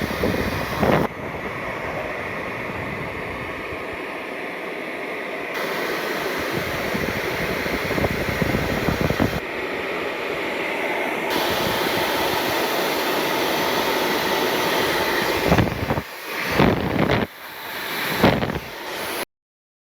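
Hair dryer running steadily, blowing air into a car's exhaust system sealed at the other end, so that the air escapes through exhaust leaks as a leak check. Near the end the noise drops and returns a few times, then cuts off suddenly.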